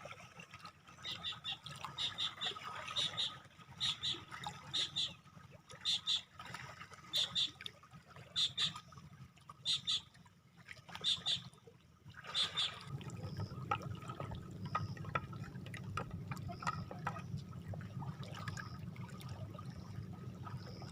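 Water lapping and trickling at a shoreline, with short high chirps repeating about once a second through the first half, then a steadier low wash of water.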